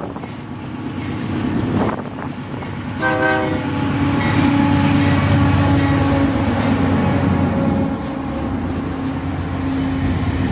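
Union Pacific diesel locomotives hauling a coal train pass close by, their engines running loud. A brief horn note sounds about three seconds in, as the locomotives arrive.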